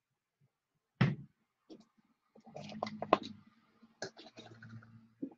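A sharp click about a second in, then a run of scattered clicks and knocks with a low hum under them.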